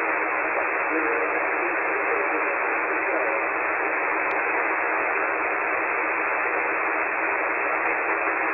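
Shortwave receiver hiss from a software-defined radio tuned to the 40-metre amateur band in lower sideband: steady static squeezed into a narrow voice passband, with no clear signal above the noise.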